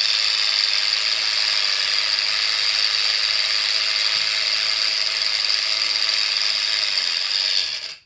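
Small electric motor driving the gears of a homemade RC truck axle, a steady high-pitched gear whir that cuts off near the end.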